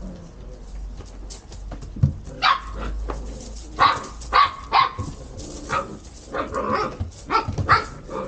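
Dutch Shepherd puppies barking and yipping in short, sharp bursts while play-fighting to guard a cardboard box. The barks come singly about two and a half seconds in, in a quick cluster around four to five seconds in, and again near the end.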